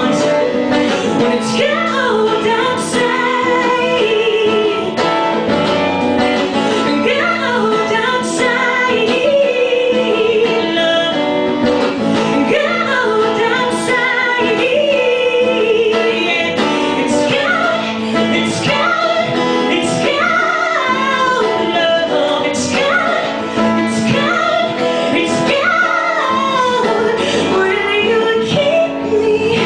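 A woman singing a song solo while playing a steel-string acoustic guitar.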